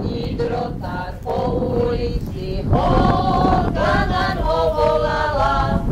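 Voices singing a Slovak folk song in long held notes, with wind rumbling on the microphone.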